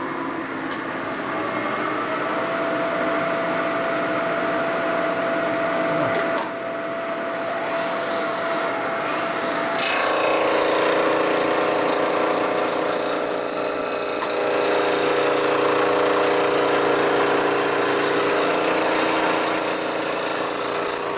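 Vertical milling machine running, its cutter machining a Harley-Davidson panhead aluminium engine case: a steady cutting noise with a ringing whine. About ten seconds in the sound shifts, turning louder with several ringing tones.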